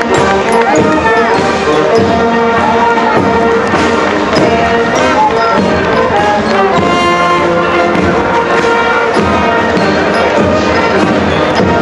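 Brass band playing, several held notes sounding together without a break.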